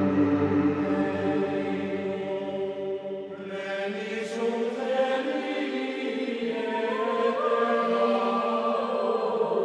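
Background music: a choir chanting in long, held notes that change pitch slowly.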